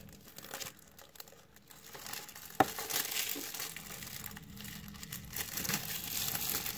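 Plastic shrink wrap being torn and crinkled off a Blu-ray case, with one sharp click a little over two and a half seconds in. The crinkling is soft and grows from about three seconds in.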